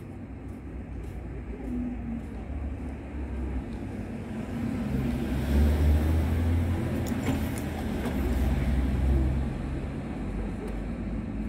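Vehicles driving past close by on a street: a van passes about halfway through, then a car near the end, each a swell of engine and tyre noise over a background of traffic.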